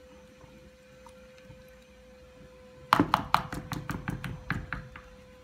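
A whisk knocking against the sides of a plastic mixing bowl while beating a wet batter: quiet for about three seconds, then a quick run of about a dozen sharp taps, roughly six a second, for about two seconds.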